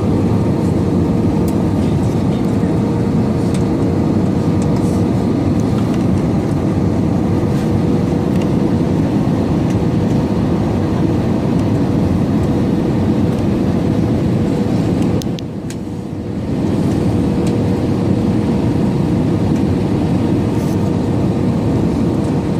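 Airbus A320 cabin noise in flight: a steady roar of engines and airflow with a faint steady hum. It dips briefly about fifteen seconds in.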